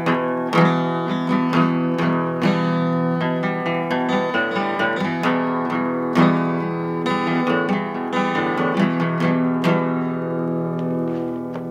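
Acoustic guitar strummed, with chords ringing on, and the playing dies away near the end.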